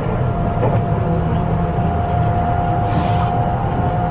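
A 253 series electric express train running at about 80 km/h: a steady low rumble with a thin whine that slowly rises in pitch as the train gains speed. There is a brief hiss about three seconds in.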